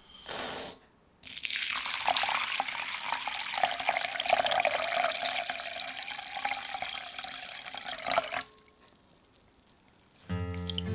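Water poured in a steady stream onto dried pulses and pearl barley in a glass bowl, splashing for about seven seconds and then stopping abruptly. A short loud rush comes just before the pour begins.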